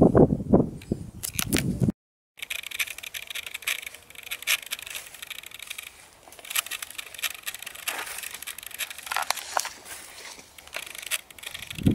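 A person's voice for the first two seconds; then, after a sudden cut, a steady crackling, rustling noise full of small clicks, mostly high-pitched, with a few louder crackles about four and six and a half seconds in.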